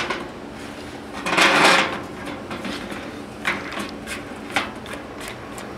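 Steel knockout punch parts being handled on a sheet-metal panel: a scrape about a second and a half in, then a few light metal clicks and knocks as the die and draw stud are fitted through the pilot hole.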